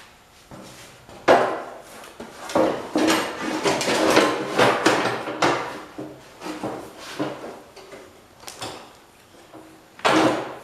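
Sheet-metal fender pan of a John Deere 110 lawn tractor being set down and worked into place on the frame: irregular clanks, knocks and scraping of metal on metal, with short ringing after some knocks.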